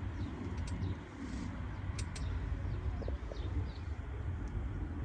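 Birds chirping over a steady low rumble, with a few sharp clicks.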